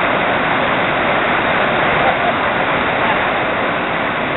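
Brown floodwater rushing and churning over a low stepped weir, a loud, steady roar of water.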